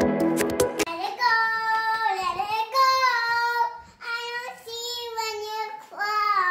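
Background music with bright plucked notes stops about a second in. Then a young girl sings a high, sliding singsong tune in several short phrases.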